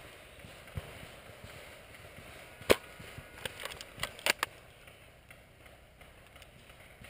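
One loud, sharp snap about two and a half seconds in, then a quick run of five or six lighter snaps and clicks over the next two seconds, over quiet woodland background.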